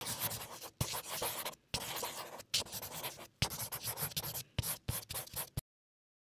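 A run of about seven scratchy strokes, each under a second and separated by short gaps, that stops abruptly about five and a half seconds in.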